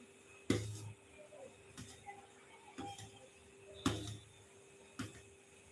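Steel spoon stirring melting butter in a stainless steel bowl, knocking against the bowl's side about once a second, five times, loudest near the end. A faint steady hum runs underneath.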